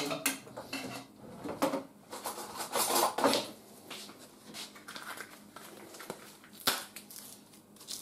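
Handling noise of containers and utensils: irregular knocks, scrapes and rustles, with a sharp click about two-thirds of the way through.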